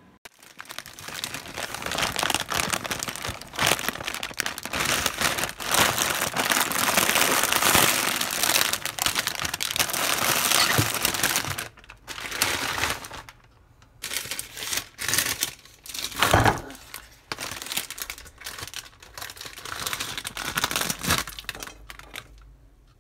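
Plastic wrappers of frozen mozzarella hot dogs crinkling as they are handled. The crinkling runs continuously for about the first half, then comes in shorter bursts, with one louder thump partway through.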